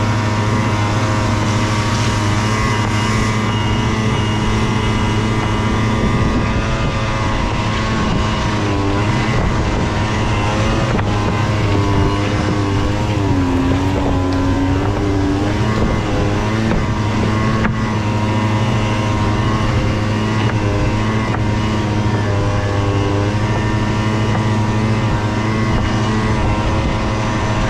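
The rebuilt engine of a Tundra running steadily while under way, with a constant drone. Its pitch dips and rises a few times as the throttle changes.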